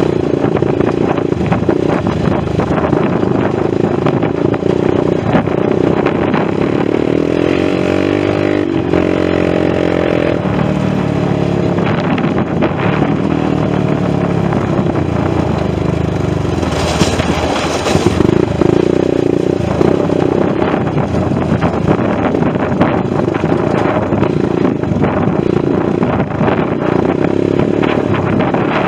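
ATV engine running under way, its pitch rising and falling with the throttle, with rattling from the machine over rough ground. There is a short hiss about seventeen seconds in.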